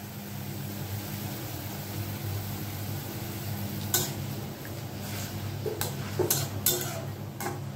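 Metal spatula knocking and scraping against a metal kadai as instant noodles are stirred in it: a handful of sharp clinks from about four seconds in. Under it, a steady low hum.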